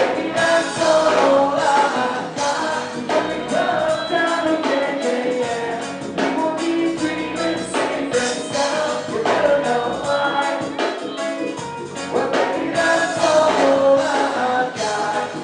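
Live reggae band playing, with electric guitar, bass, drums and a male lead vocal, heard amplified through a club's sound system from within the crowd.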